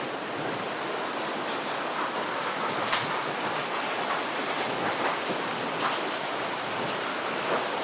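Small creek flowing steadily, a running-water hiss with faint small ticks and one sharp click about three seconds in.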